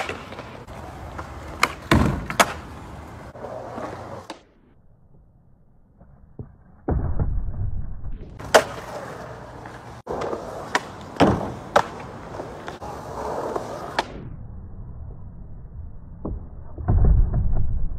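Skateboard wheels rolling on concrete, broken by sharp clacks of the board popping, landing and hitting a plastic barrier. The rolling drops away about four seconds in and comes back loud near seven seconds.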